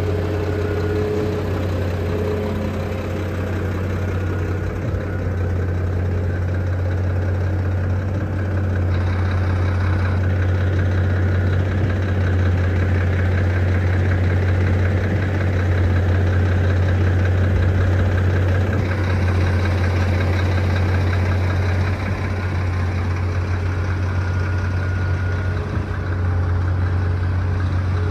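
Truck engine idling steadily, with a strong low hum.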